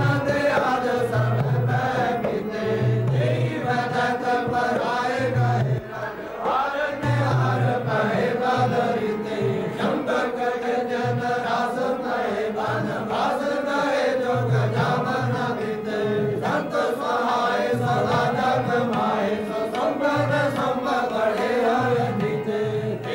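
Group of Nihang Sikh men chanting a devotional hymn together, sung into a microphone, with a low beat repeating about every second and a half underneath.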